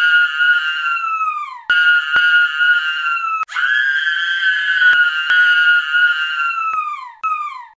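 A jump-scare scream: piercing, very high-pitched shrieks repeated about four times, each held long and sliding down in pitch as it ends, the last one cut off abruptly.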